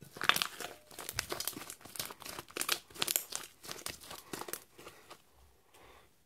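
Hands squeezing, stretching and folding a large batch of pink shaving-foam and glue slime, giving a dense run of small wet crackles and pops that thin out and fade near the end.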